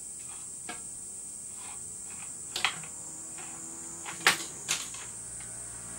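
A cat batting at a teaser wand: several short, sharp taps and scrapes of paw and claws against the furniture, the loudest about four seconds in, over a steady high hiss.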